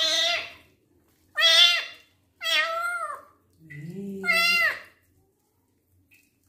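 Young kitten meowing in distress while being bathed: about four short, shrill cries in the first five seconds, each rising and falling in pitch.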